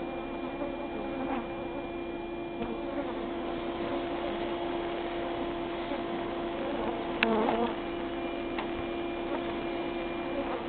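A mass of stirred-up honeybees buzzing in a steady, even drone. A brief sharp knock sounds about seven seconds in.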